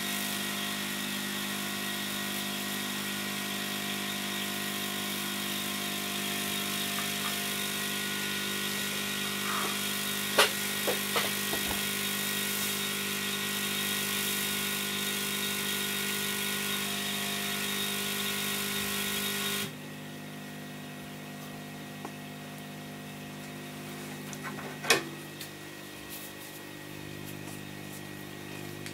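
KADA 852D hot-air rework station's blower running, a steady rush of air over a steady hum as the gun heats to about 380 °C. About 20 s in, the air hiss drops much lower while the hum keeps going, and a few sharp clicks of handling sound around 10 s and 25 s.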